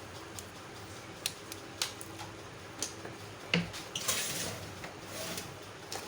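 Handling noise from work on an opened microwave oven: a series of sharp clicks and light metallic clatters with scraping in between, as wires, tools and metal parts are moved. The loudest knock comes about three and a half seconds in.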